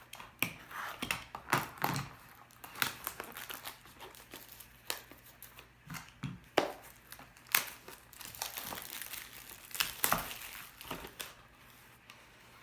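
Plastic shrink wrap being torn and crinkled off a sealed trading-card box, with irregular sharp crackles throughout and a denser stretch of crinkling near the end, as the box is opened.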